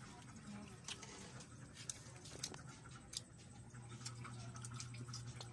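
Faint scattered clicks and light scrapes from a cooking pan and utensils being handled, over a low steady hum that grows a little louder about four seconds in.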